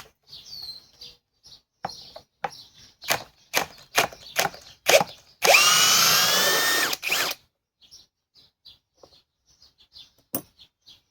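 A cordless Greenworks Pro hammer drill's keyless chuck clicking as it is hand-tightened, a dozen or so sharp clicks. Then the drill runs for about two seconds with a rising whine and stops abruptly.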